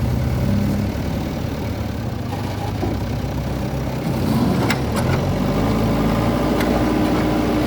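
JCB 3DX backhoe loader's diesel engine running, its note rising about four seconds in and holding higher, with a few sharp metallic clanks.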